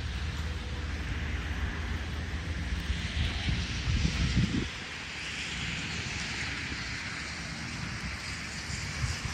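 Outdoor rural ambience: wind rumbling on the microphone over a steady high hiss, the rumble peaking and then dropping off abruptly about five seconds in.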